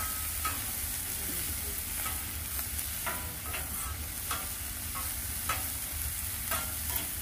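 Broccoli sizzling on a flat-top griddle while a metal spatula scrapes and clinks against the steel cooktop, every second or so, as the florets are turned.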